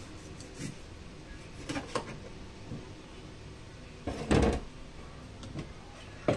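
Kitchen knife cutting limes on a plastic cutting board: a few separate knocks of the blade on the board, then a louder knock about four seconds in as the knife is set down on the wooden counter, and a sharp tap near the end.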